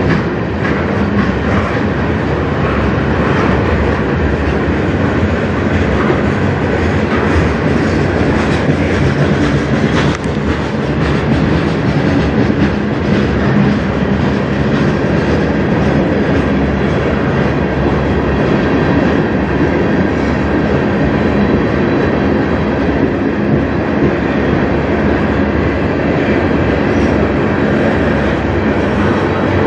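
Freight train cars rolling past, covered hoppers and tank cars, their wheels clacking over the rail joints in a steady loud rumble.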